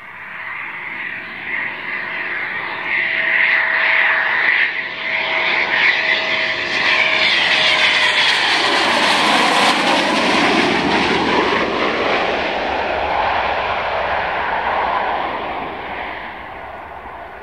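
Eurofighter Typhoon fighter jet passing low overhead, its twin turbofan engines' whine building steadily. The pitch drops sharply as it goes by, about nine seconds in, and the engine noise then slowly fades.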